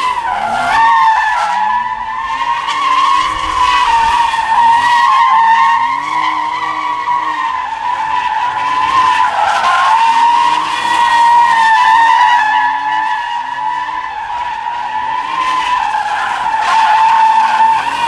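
Tyres of a Cadillac ATS-V screeching without a break as the car spins donuts: one steady, high squeal. Underneath it the engine revs rise and fall over and over.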